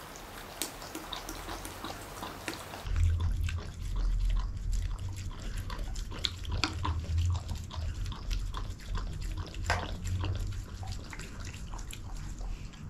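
Belgian Shepherd Groenendael dog eating raw meat and organs from a stainless steel bowl: wet, smacking chewing with many quick sharp clicks. From about three seconds in, low thuds run underneath.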